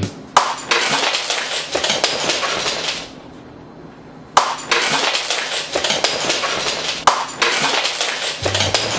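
A prop test mug smashing against a man's head, heard three times. Each time there is a sharp crack followed by about three seconds of shattering crash.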